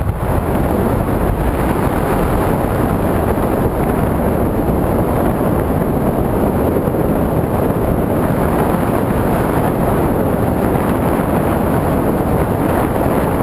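Loud, steady wind rushing and buffeting over the camera microphone during a skydive.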